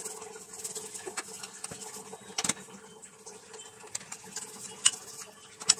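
Wooden rolling pin rolling out paratha dough on a wooden board, faint and rustling, with three sharp knocks spread through it.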